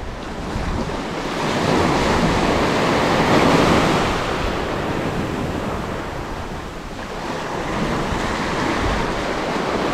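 Sea waves breaking and washing up a beach, swelling to their loudest about three seconds in as a wave breaks, easing off, then rising again near the end.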